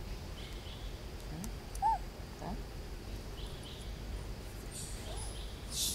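A single short, clear call with a rise-and-fall pitch about two seconds in, with a few fainter short rising calls around it, over a steady low background rumble; a brief noisy rustle comes near the end.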